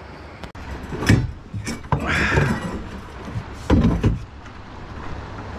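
Several dull knocks and thuds, about a second in and again near four seconds, with a short rushing noise around two seconds.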